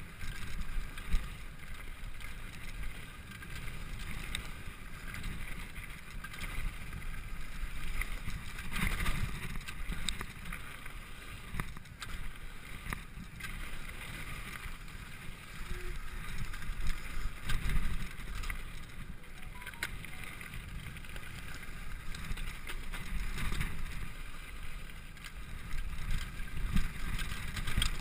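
Mountain bike riding fast down a rough gravel and dirt trail: a steady rumble and rattle of tyres and frame over stones, with wind buffeting the camera microphone and scattered sharper knocks from bumps.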